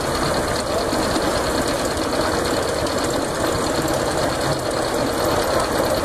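Steam-powered sawmill running: the steam engine and belt drive keep the circular saw blade spinning at speed, a steady, fast mechanical clatter with no log yet in the cut.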